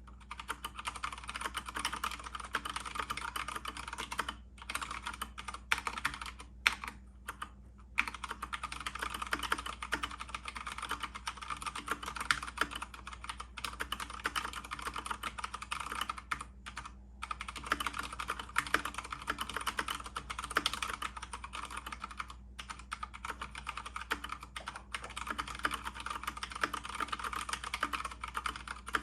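Fast, continuous typing on a mechanical keyboard with tactile brown switches: a dense clatter of key presses, broken by a few brief pauses.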